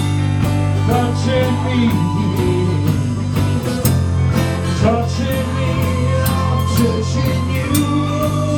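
Live rock band playing: electric guitar, bass and drums with a steady beat, and a singing voice.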